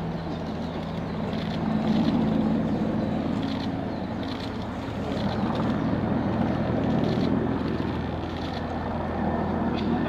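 An engine running steadily with an even low hum, with faint light ticks now and then above it.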